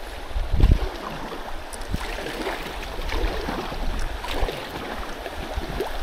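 Shallow river current running and lapping against an inflatable packraft's hull as it drifts, with a louder low bump about half a second in.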